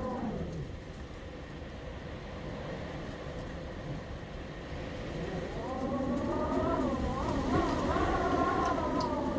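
Gusting wind whistling around a house door: a wavering, several-toned whistle that dies away at the start and comes back about five seconds in, over a steady low wind rumble.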